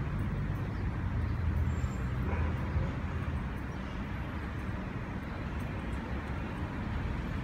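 Outdoor city background noise: a steady low rumble with no distinct events.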